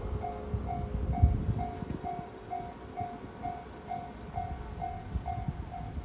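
Japanese railway level-crossing alarm ringing, an electronic bell repeating at about two strikes a second, the signal that a train is approaching. Irregular low rumbling runs underneath.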